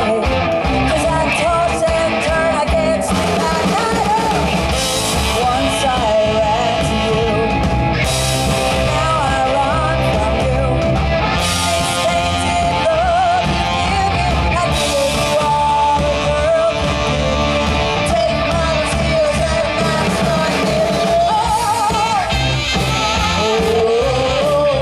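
Live rock band playing loudly, with electric guitar, bass and drums under a singer's vocal line.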